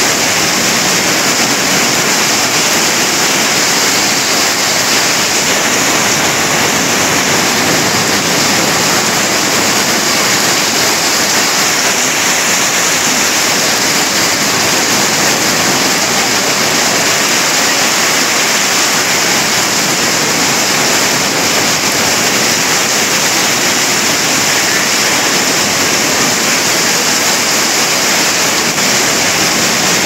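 A waterfall's falling water: a steady, hissing rush with no surges or pauses.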